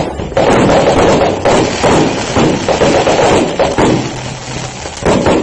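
Aerial fireworks going off in a dense, continuous run of bangs and crackling.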